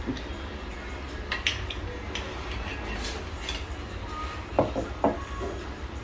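Cutlery clinking against plates during a meal, a handful of separate light clinks and a couple of duller knocks near the end, over a steady low background rumble.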